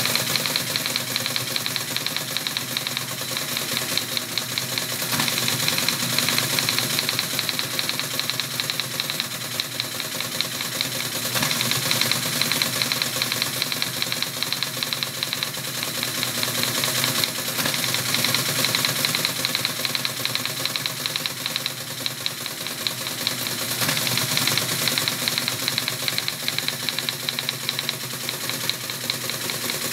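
ASR-33 Teletype printing an octal memory dump: a rapid, steady clatter of characters being struck onto the paper line after line, over the steady hum of its running motor, with a louder knock every several seconds.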